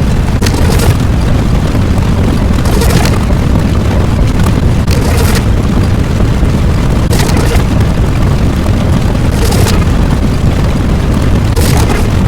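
A loud, steady low rumble like a sustained explosion sound effect, with a brighter hissing flare about every two seconds.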